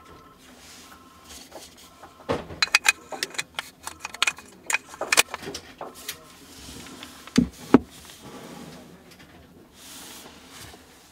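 A Canon RF35mm F1.8 Macro IS STM lens handled in gloved hands: a run of sharp plastic clicks and taps as its rear lens cap is twisted on, then two quick low thumps a few seconds later as the lens is set down upright on a table.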